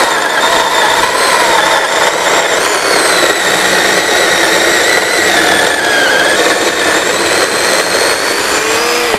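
KM Grand LR-C120 10-inch cordless chainsaw running under load, its chain cutting steadily through a dense log. The motor's pitch dips briefly about six seconds in.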